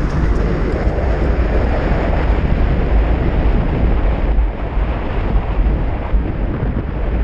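Wind buffeting the microphone of a 5000-watt electric bike riding across a grass field, with a deep, steady rumble from the tyres rolling over rough ground. No clear motor whine stands out from the rush.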